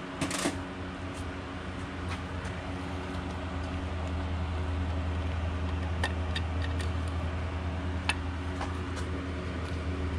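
Steady low machine hum, with a few light clicks and taps as gloved hands pull the spring and parts out of an outboard engine's poppet valve housing.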